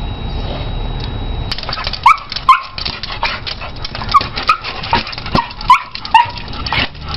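Small dog yelping and whining in excitement: short, high, hooked cries about two a second, with sharp clicks among them, starting about a second and a half in after a low steady rumble.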